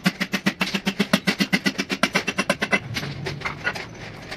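Rapid metal-on-metal hammering, about seven blows a second, on a steel liner driver set in a cylinder bore of a diesel engine block, each blow ringing briefly. The blows are driving a cylinder liner down into the block. They stop about three seconds in.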